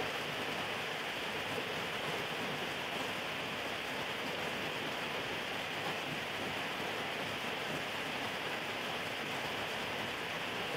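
A steady, even hiss of background noise with no distinct events.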